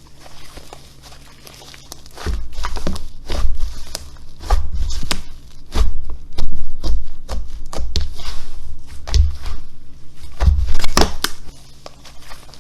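Hands squeezing and working slime: a dense run of crackling pops and clicks with low squishy thumps, starting about two seconds in and easing off near the end.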